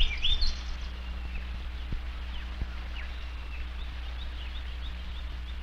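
Small birds chirping: short high chirps and quick rising and falling notes, busiest in the first half-second and scattered after, over a steady low hum.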